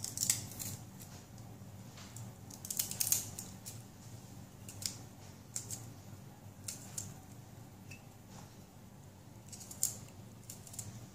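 Small kitchen knife slicing a peeled garlic clove held in the fingers: a string of short crisp cuts, irregularly spaced, some in quick pairs.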